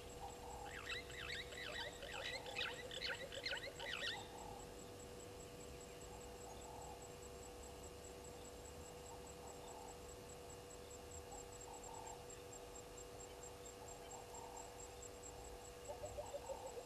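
Blacksmith lapwing giving a quick run of sharp metallic 'tink' calls, about three a second, for some three seconds. Under it there is a faint steady high insect trill, and near the end a low rapid croaking.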